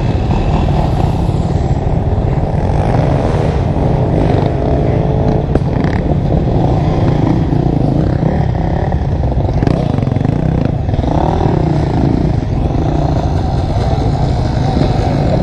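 Several dual-sport dirt bike engines running close by, a steady idle with revs rising and falling a couple of times as bikes pull away and ride past.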